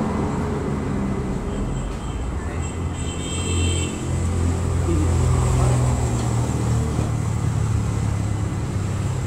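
Steady low rumble of road traffic, swelling for a couple of seconds past the middle.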